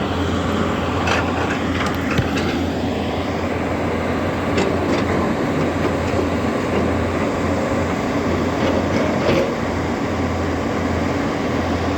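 Excavator's diesel engine running steadily under load, with a few short metallic knocks.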